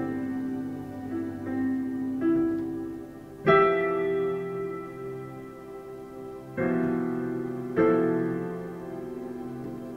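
Slow, gentle solo piano music: soft chords that ring out and fade, with a new chord struck about three and a half seconds in and two more close together near the end.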